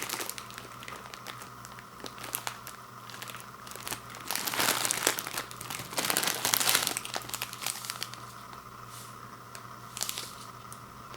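Plastic wrapper of an instant ramen packet crinkling as it is handled, louder about four and again about six seconds in.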